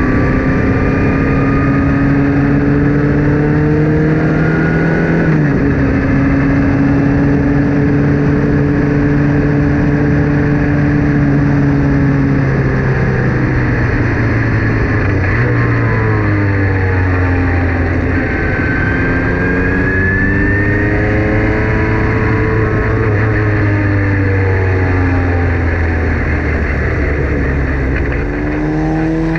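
Formula Ford single-seater racing car engine running hard under racing load. The revs rise to a sharp gear change about five seconds in, fall in steps through the middle, then climb and fall again and rise once more near the end.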